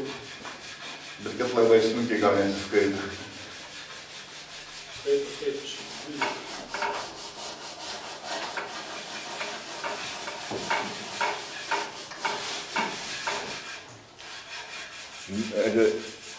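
Wood being sanded by hand: a run of short, uneven rubbing strokes of abrasive on wood. A man's voice is heard briefly about two seconds in and again near the end.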